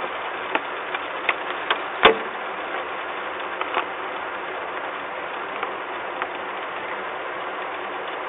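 Steady hiss of heavy rain, with irregular sharp ticks of drops striking close by and one louder knock about two seconds in.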